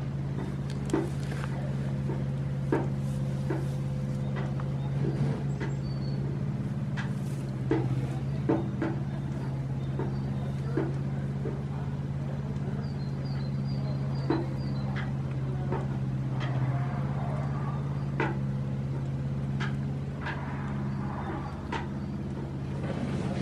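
A steady low mechanical hum, dotted with small clicks and knocks, and two brief runs of faint high chirps about six seconds in and in the middle.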